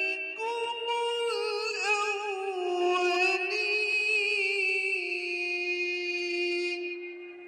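A Quran reciter's voice chanting in a slow melodic style, drawing out long notes that waver and glide in pitch, with the last held note fading about seven seconds in.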